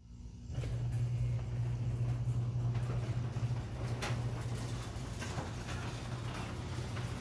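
Electric garage door opener running as a sectional garage door rises, a steady low hum that starts about half a second in, with a few faint clicks.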